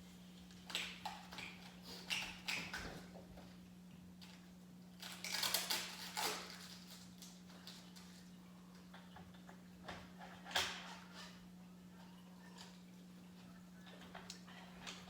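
Irregular knocks, clatters and rustles of objects being handled, over a steady low hum.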